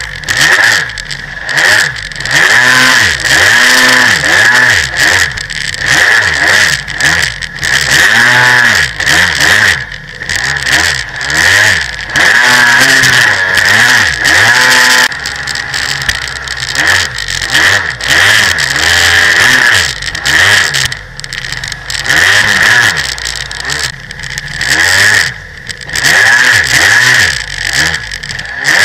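Jet ski engine revving up and down over and over as it runs across choppy water, with water spray rushing and splashing around the hull.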